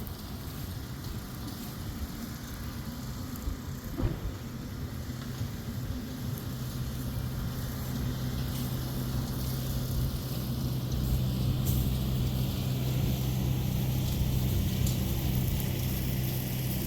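A motor vehicle's engine running with a steady low hum that grows gradually louder, with a single knock about four seconds in.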